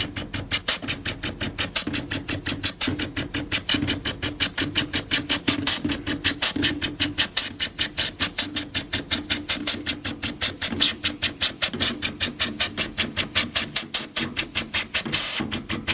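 Air pulsator blasting compressed air into a wood-gas generator's gas filter to clean it, a fast, even rattle of sharp puffs at about six a second, with a steady low hum beneath.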